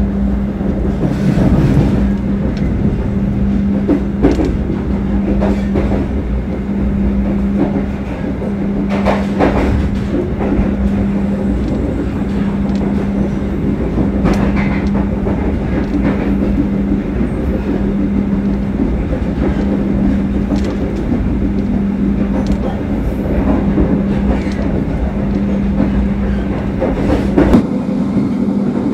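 Passenger train running at speed, heard from inside the coach: a steady rumble of wheels on rail under a steady hum, with occasional clicks and knocks over the rail joints.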